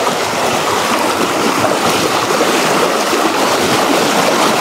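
Strong, fast river current rushing: a loud, steady rush of water.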